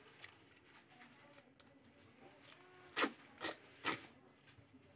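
Close-up sounds of a person eating rice and pork by hand: faint handling of the food, then three loud, wet mouth smacks about half a second apart, starting about three seconds in.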